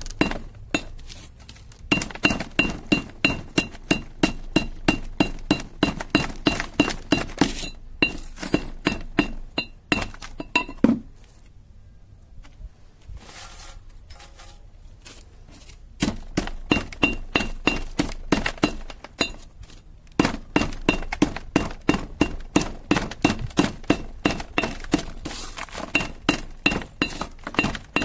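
A metal pestle pounding burned mobile-phone circuit boards in a metal mortar: rapid, steady strikes about three a second, each with a short clinking ring as the brittle boards and their chips crack. The pounding stops for a few seconds about halfway through, then resumes.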